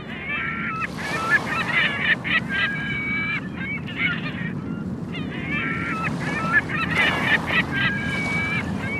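Gulls calling over and over in clusters of short cries and longer held calls, over the steady wash of sea waves on a beach.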